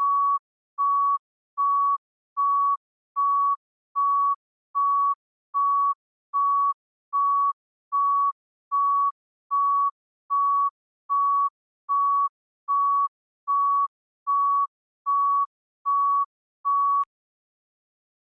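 Heart rate monitor beeping: one steady mid-pitched tone repeating evenly, about four beeps every three seconds. The beeping stops abruptly with a click near the end.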